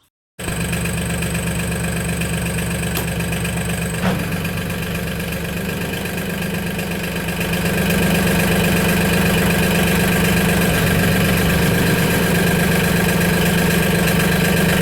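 Mahindra 1626 tractor's diesel engine running steadily, cutting in abruptly just after the start and growing louder about halfway through, while its hydraulic loader circuit is being tested after a coupler repair.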